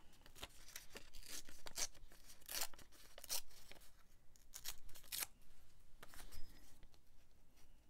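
Paper scraps being handled on a cutting mat: a run of short, crisp rustles and crinkles for about five seconds, then one more a second later.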